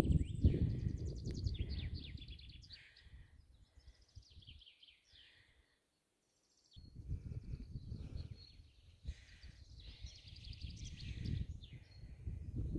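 Several songbirds singing, with repeated fast trills and short song phrases overlapping. A low rumbling noise runs under the song at the start, fades out, and comes back about seven seconds in, louder than the birds.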